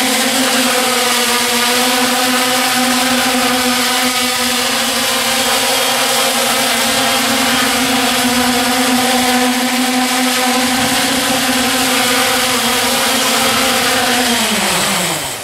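Eight electric motors and propellers of a heavy-lift octocopter running at high power under a 15 kg load, a loud steady buzzing whine. Near the end the pitch slides down and the sound dies away as the motors spool down on landing.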